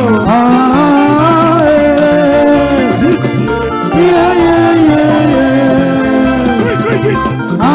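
Music with singing: a melody of long, held notes that glide between pitches over a steady low bass line.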